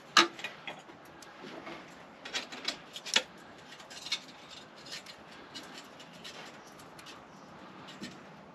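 Irregular sharp clicks and light metallic clinks, as of tools and small hardware being handled, loudest about a quarter-second in and again around three seconds in.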